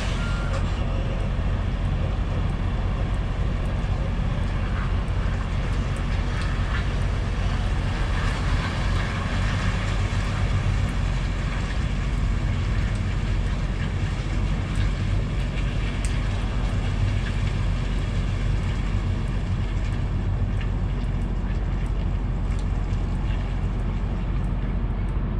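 Large diesel engine idling steadily, a constant low hum.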